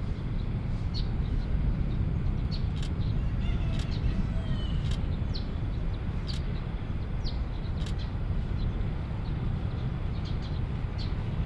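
Distant Boeing 787 jet engines running at low power as the airliner taxis and lines up on the runway, a steady low rumble. Over it, small birds give short, high chirps that drop in pitch, about one a second.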